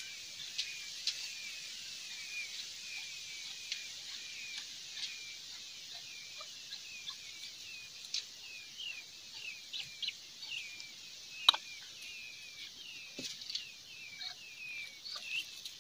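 Newly hatched peachicks (peahen chicks) peeping over and over: short high chirps, about two a second, with a few faint clicks among them.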